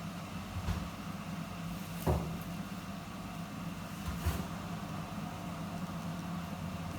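Steady low hum of a kitchen stove running under a pot, with three faint knocks near the start, about two seconds in and about four seconds in.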